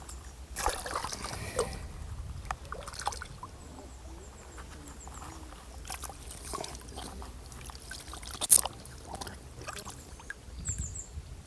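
Small splashes and trickling water with scattered clicks and rustles from a fish and tackle being handled at the water's edge, and one sharp click about eight and a half seconds in.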